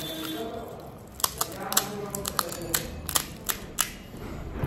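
A run of sharp, irregular crisp clicks, about ten in under three seconds starting about a second in, from hollow fried panipuri shells being handled and cracked.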